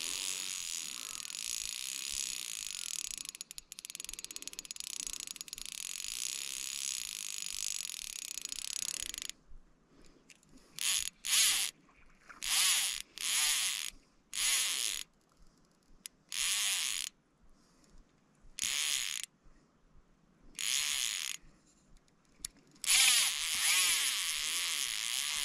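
Fly reel's drag buzzing as a hooked fish strips line off the spool: a continuous high buzz for about nine seconds, then a series of short runs of about a second each, then a long unbroken run again near the end.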